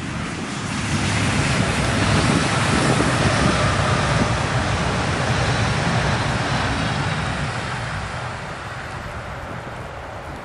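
ICE T high-speed electric multiple unit passing at speed: the rushing noise of wheels on rail and air swells to a peak and then fades as the train draws away.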